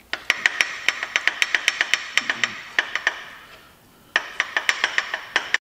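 Ratchet wrench clicking in two quick runs, about six or seven sharp metallic clicks a second with a short pause between, as a main bearing cap bolt is worked.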